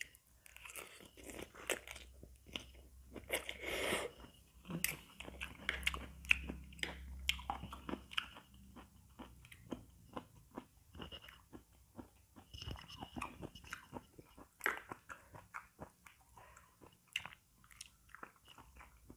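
Close-miked eating of fried instant noodles (Indomie Mi Goreng) with cabbage: a steady run of chewing, crunching and wet mouth clicks. Near the end comes a bite of fried egg.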